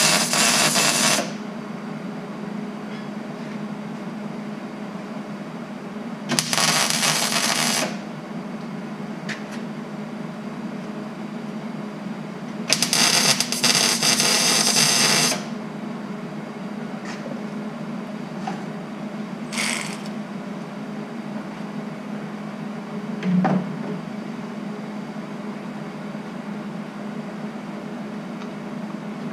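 MIG welder laying short weld beads on steel exhaust tubing, its arc crackling and buzzing in three bursts of about one to two and a half seconds, then a brief fourth, over a steady low hum. A single knock comes about 23 seconds in.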